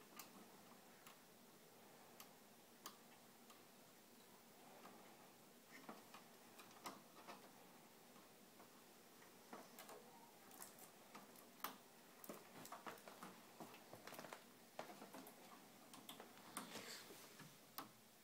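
Faint, irregular clicks and light rattles of hands handling the cables, plastic connectors and circuit boards inside an opened LCD TV's metal chassis. The clicks come more often from about ten seconds in.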